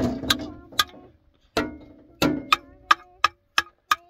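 A quick series of sharp taps or knocks, about three a second, not quite evenly spaced.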